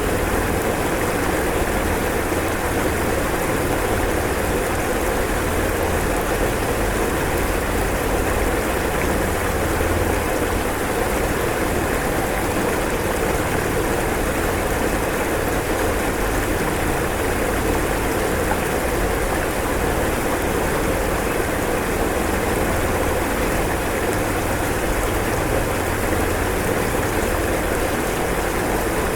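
Rushing floodwater: a steady, dense rush of moving water with a low rumble underneath, unbroken throughout.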